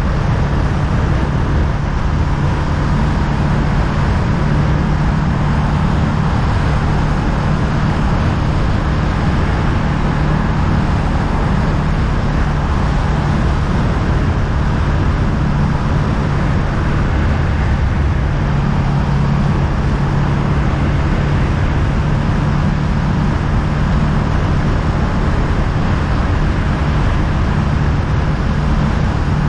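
Honda Rebel 500's parallel-twin engine running steadily at a constant cruising speed, with even wind and road noise from riding.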